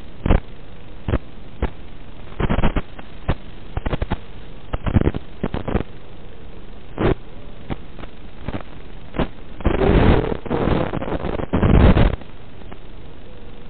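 Steady static hiss from an analog 5.8 GHz FPV video receiver, broken by short loud crackles and a dense run of them about ten to twelve seconds in, the sound of the video signal breaking up.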